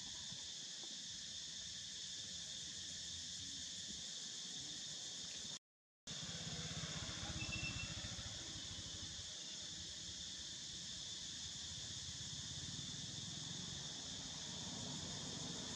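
Steady high-pitched insect chorus, cutting out completely for about half a second before the middle, with a low rumble underneath after the break.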